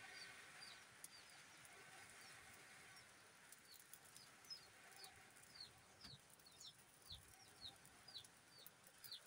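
Near silence: a faint hiss of air blown through a blowpipe into a wood fire for the first few seconds, with a bird's short falling chirps repeating about twice a second.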